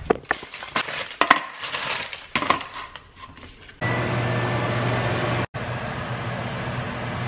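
Kitchen handling: a string of sharp clicks and knocks from doors and packaging. About four seconds in, a microwave oven gives a short beep and starts running with a steady hum. After an abrupt cut, a different steady background noise continues.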